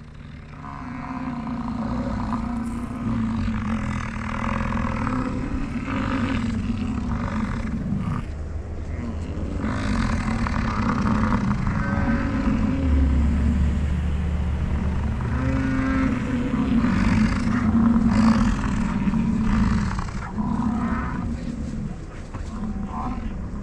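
American bison bulls bellowing during the rut: a run of long, low, deep calls, one after another and overlapping, with no break between them.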